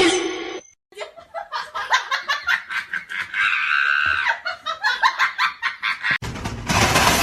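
A person laughing in quick, rhythmic bursts for several seconds. About six seconds in, a louder, noisy sound cuts in.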